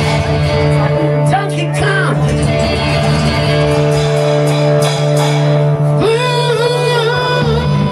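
Live rock band with acoustic and electric guitars ringing out sustained chords. About six seconds in, a man's voice comes in singing a long, wavering note.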